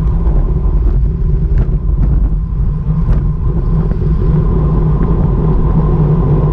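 Wind rushing over a bike-mounted GoPro Hero5 Session and road rumble from a road bike riding at about 40 km/h, a loud steady rumble. A few faint clicks come through in the first half.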